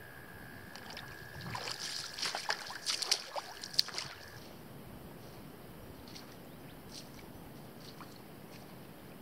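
Footsteps wading through shallow lake water, a run of sloshes and splashes over about two and a half seconds, loudest near four seconds in. A faint steady high tone runs under them and stops at about the same point; after that there are only a few faint water ticks.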